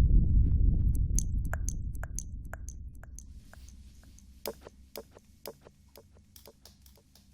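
Close-microphone ASMR sounds: a deep, muffled rumble that fades away over about four seconds, with light clicks and taps scattered through it.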